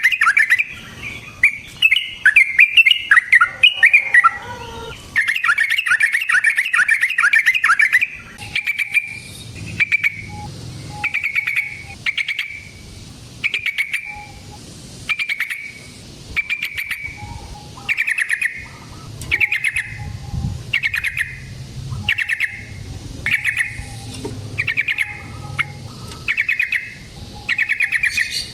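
Yellow-vented bulbul (trucukan) song: a fast, bubbling chatter of notes for the first several seconds, then short liquid phrases repeated about once every second and a bit.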